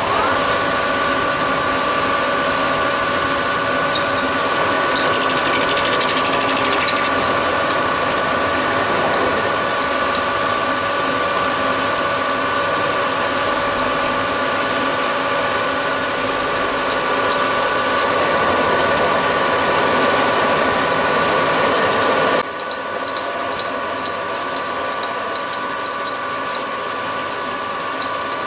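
Hafco HM-54GV milling machine running with an end mill side-cutting an aluminium block: a steady high-pitched whine and squeal. About 22 seconds in the sound drops suddenly to a quieter, steady running.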